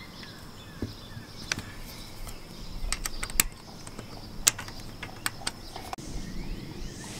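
Sharp metal clicks and taps, about seven spread irregularly, the loudest about halfway through, as a bolt and the antenna mount's bracket are worked into a roof-rack track by hand. Birds chirp faintly near the end.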